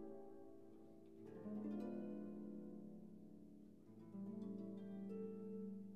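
Quiet instrumental background music: soft held chords, with new notes coming in about a second and a half in and again about four seconds in.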